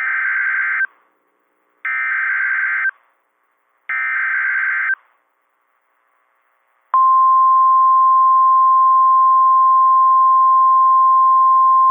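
Emergency Alert System signal on NOAA Weather Radio: three one-second bursts of the SAME digital header, each a harsh warbling screech, with about a second of silence between them. After a pause, the steady single-pitch 1050 Hz warning alarm tone starts about seven seconds in, announcing a new warning message.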